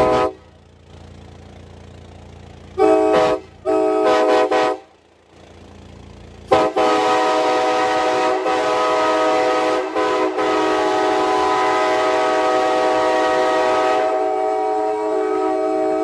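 Nathan Airchime K5LA five-chime air horn from a 1977 Amtrak FL9, sounding a chord: a blast ending right at the start, two short toots about a second apart, then one long blast held steady for about ten seconds.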